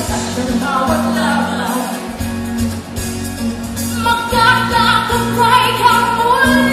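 A female pop singer singing live into a microphone over band accompaniment, holding a long high note with vibrato from about four seconds in.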